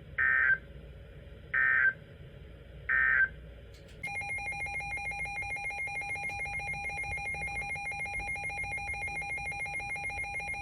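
Emergency Alert System end-of-message signal: three short bursts of digital data tones about a second and a half apart. From about four seconds in, a steady electronic alert tone follows, pulsing rapidly, and stops near the end.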